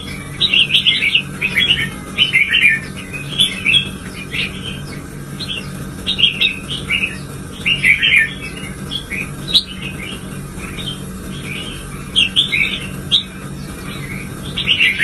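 Red-whiskered bulbul singing: short, bright chirping phrases in quick succession with brief gaps between them, over a steady low hum.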